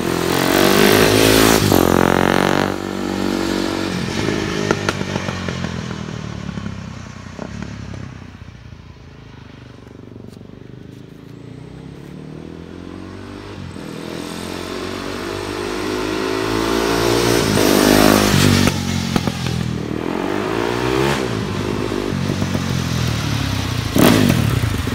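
KTM 450 single-cylinder dirt bike engine in a home-built Power Wheels kart, revving up and down repeatedly as it is driven. Loud and close at first, it fades into the distance midway, then comes back and is loud again near the end.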